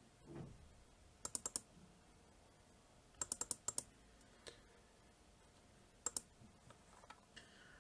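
Computer keyboard keys clicking in short quick runs: about four, then six, then two.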